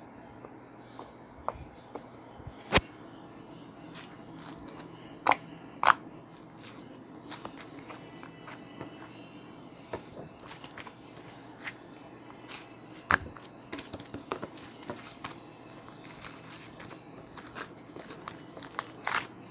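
Scattered clicks, knocks and light rustling in a small room, with a few louder sharp knocks among them.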